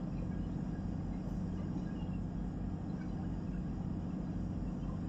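A boat's engine running under way with a steady low drone, over a constant wash of noise.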